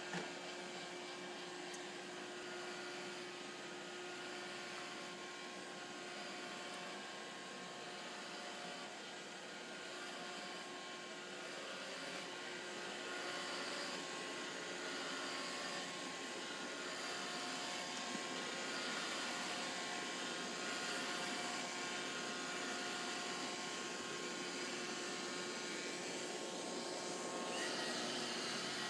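Roomba robot vacuum running: a steady whirring hiss with a thin motor whine, and a brief click at the very start.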